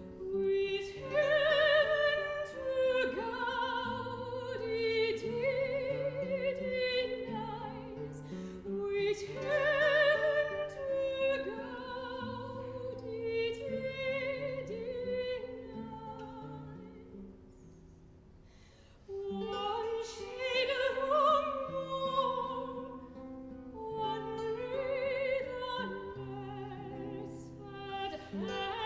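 Soprano singing a classical art song with wide vibrato, accompanied by baroque guitar. A little past the middle the music drops quiet for a couple of seconds, then the voice comes back in.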